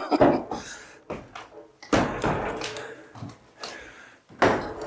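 Old wooden stairs in a church bell tower thumping and knocking underfoot: three loud wooden knocks, near the start, about two seconds in and near the end, each fading quickly.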